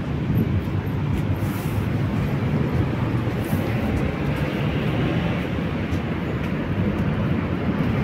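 Steady low rumble of street traffic.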